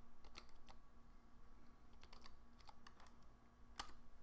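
Faint keystrokes on a computer keyboard as a word is typed, irregular clicks with one louder key press near the end.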